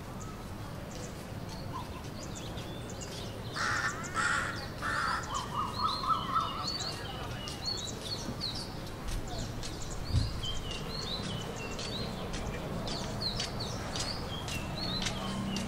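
Birds calling: many short, quick chirps repeat through most of the stretch, with a few louder harsh calls about four seconds in. A steady low background rumble runs underneath, and a single dull thump comes about ten seconds in.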